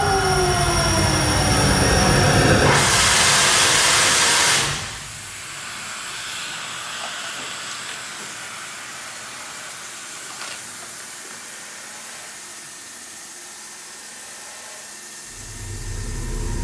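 Aerosol spray cans hissing as they discharge: a loud burst of spray for about two seconds, then a softer, steady hiss. At the start, electronic tones slide downward over a low hum, and a low rumble comes in near the end.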